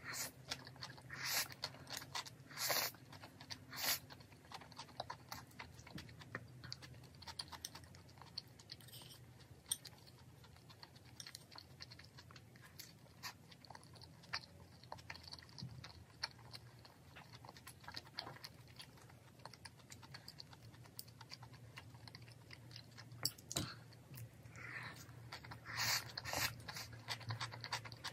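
Close-up eating sounds: chewing and slurping cream pasta noodles, with many small clicks of wooden chopsticks and a spoon against a ceramic bowl. The louder slurps come near the start and again near the end.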